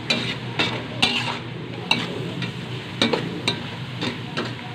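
Slotted metal spatula stirring and scraping pork pieces around a metal wok, with irregular scrapes and clinks against the pan. The pork sizzles steadily in a reducing soy-sauce braise.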